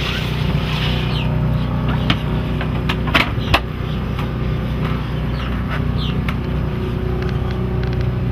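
Boat's 5 kW onboard generator running with a steady hum. Two sharp knocks come about three seconds in.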